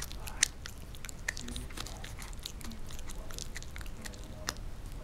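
A teething puppy gnawing on a bone: irregular crunching and clicking bites of teeth on bone, the sharpest one about half a second in.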